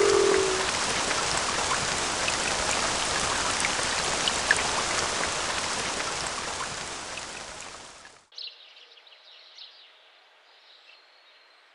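Steady heavy rain, fading over a couple of seconds and stopping about eight seconds in. After that come a few faint, scattered bird chirps.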